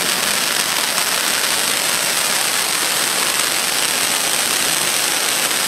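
Several ground firework fountains spraying sparks with a steady hiss.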